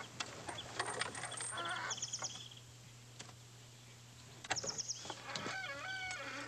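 Farmyard sounds: a small bird trills twice in short, quick bursts of high chirps, and a domestic fowl calls once near the end, over scattered light clicks and knocks from the horses' harness and the wagon and a steady low hum.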